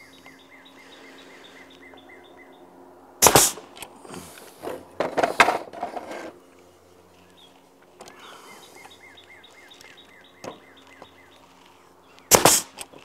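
Pneumatic nail gun firing into the wooden parts of beehive frames: a sharp shot about three seconds in, a cluster of shots and wood knocks over the next few seconds, and another shot near the end. A bird chirps in quick repeated notes in the background.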